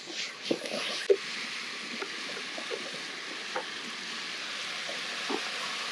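Food sizzling steadily in a pan of chicken risotto cooking over a campfire, with a few light taps and clinks, as of a utensil against the pan.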